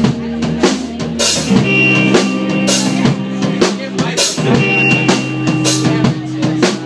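Live rock band playing: a drum kit with bass drum and snare beating a steady rhythm over held low notes from bass and guitar.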